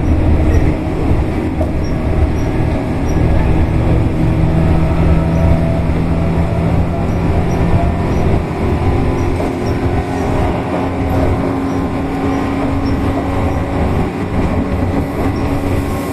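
Tobu 8000-series electric commuter train running along the line: a steady rumble of wheels on rail with a humming tone from the drive that slowly shifts in pitch.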